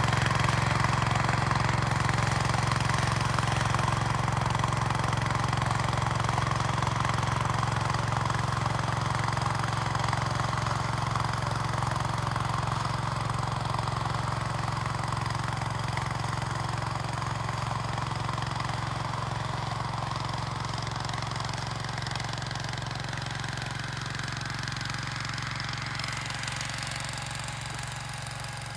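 Gravely 430 walk-behind tractor's engine running steadily while snow blowing, growing gradually quieter over the stretch.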